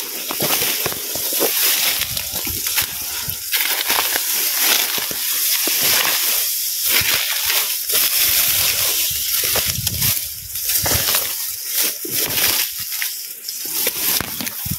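A person wading through shallow water, feet sloshing and splashing irregularly with each step.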